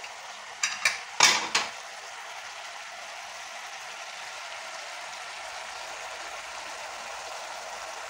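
A few metallic clicks and clanks from the aluminium pressure cooker's lid being handled, about a second in, then a steady sizzle from the spiced chicken cooking in the open cooker on the flame.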